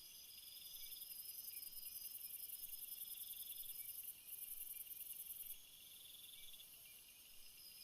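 Crickets and other insects chirping in chorus: a high, rapidly pulsing buzz, louder in the middle, over a steady thin tone and trills about a second long that repeat every couple of seconds.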